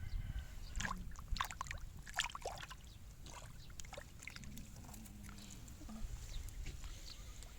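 Shallow water splashing and sloshing, with a cluster of sharp splashes in the first few seconds and scattered smaller ones after, over a steady low rumble.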